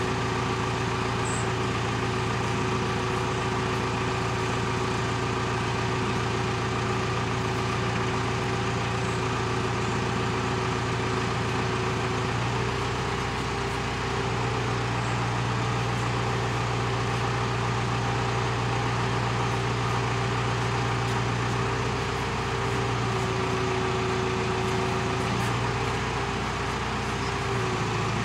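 A heavy engine running steadily, its note changing about twelve seconds in and again near the end.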